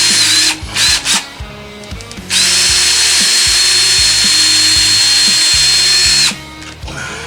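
Power drill boring pilot holes: a short run at the start, two quick blips about a second in, then a steady run of about four seconds with an even motor whine that stops near the end.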